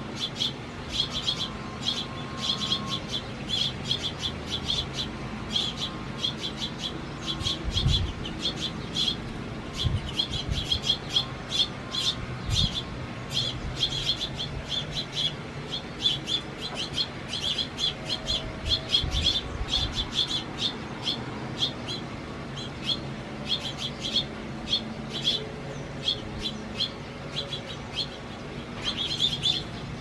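House sparrows and house finches chirping, a fast unbroken run of short high chirps. A few low thumps come in between about 8 and 20 seconds in.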